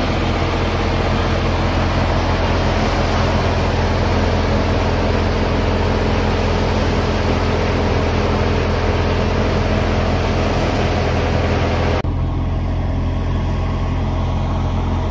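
Fiat 640 tractor's four-cylinder diesel engine running steadily under load, driving a wheat thresher whose drum and blower add a dense hiss. About twelve seconds in the hiss drops away abruptly, leaving mostly the low engine drone.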